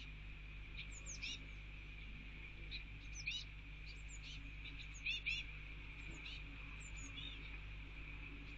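Blue tit fledglings calling: short, high, thin chirps in small irregular clusters, over a steady low electrical hum.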